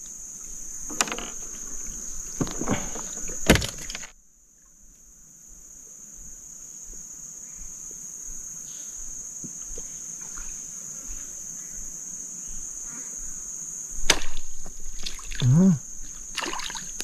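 Insects chirring in a steady, high-pitched drone. A few sharp knocks in the first few seconds and again near the end.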